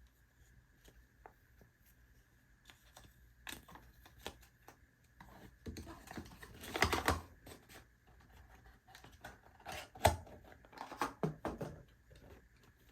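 Hands handling a small plastic speaker and its packaging: scattered clicks and taps with rustling, busiest about six to seven seconds in, with one sharp click about ten seconds in.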